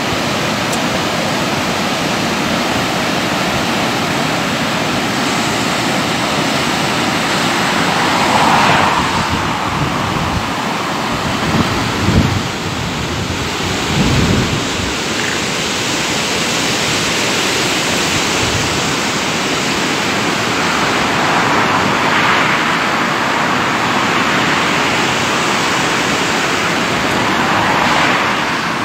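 Rushing water of the Çoruh river in spate, swollen by spring rains, pouring over concrete weir drops: a steady, loud rush that swells now and then. A few low thumps come near the middle.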